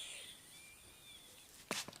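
Sharp slaps of a barber's hand massage, a quick burst of two or three near the end, after faint thin high tones.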